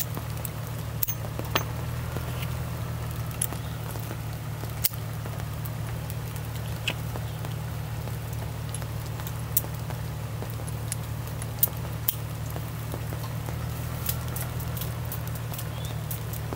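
Scattered small metallic clicks and clinks of .357 Magnum revolvers and cartridges being handled while loading, over a steady low hum.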